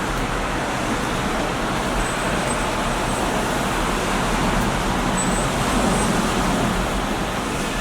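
Steady background noise, an even rumbling hiss with no distinct sounds standing out in it.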